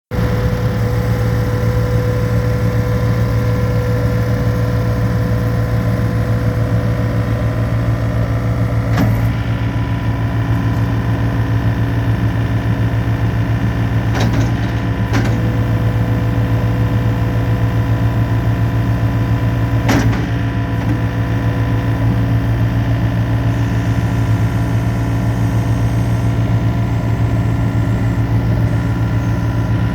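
Engine of a Gehl R105 skid steer loader running steadily at a constant speed, with a few sharp clicks or knocks scattered through it.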